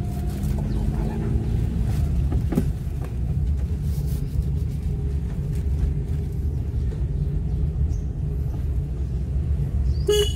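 Cabin sound of a Maruti Suzuki Alto 800's three-cylinder 800 cc engine and tyres on the road while driving, a steady low rumble. A short car horn toot right at the end.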